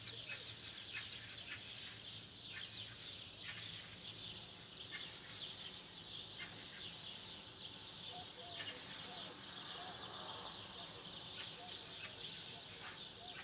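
Many small birds chirping together in a dense, continuous chorus, with sharp single chirps standing out about once a second above it.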